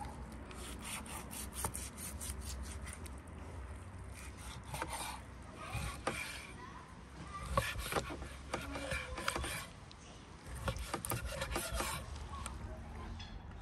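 A chef's knife scraped quickly back and forth against another knife's blade to sharpen it, then slicing through raw lamb liver with sharp knocks of the blade on the wooden cutting board.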